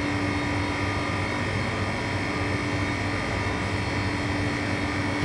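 Steady mechanical drone of an LCD-separating freezer's refrigeration compressor and cooling fans running while it holds its very low temperature.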